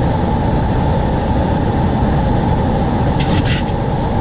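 Steady airflow and engine noise inside an airliner's flight deck during the landing, with a short, sharp burst of higher sound a little over three seconds in.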